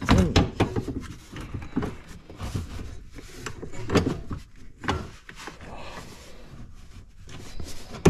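Irregular clicks, knocks and rubbing of hands working a new shifter cable end and its retaining clip into place behind the plastic console panel of a Polaris General UTV.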